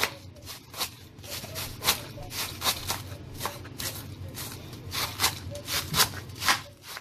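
Kitchen knife chopping cabbage by hand on a plastic cutting board: short cutting strokes about twice a second, unevenly spaced.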